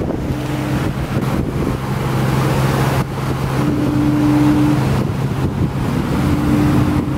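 Passenger boat's engine droning steadily with a low, even hum, with wind buffeting the microphone on the open deck.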